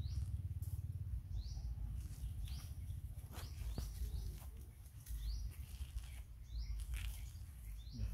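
A bird calling over and over, a short high chirp that slides down in pitch about once a second, with a few light clicks and a steady low rumble underneath.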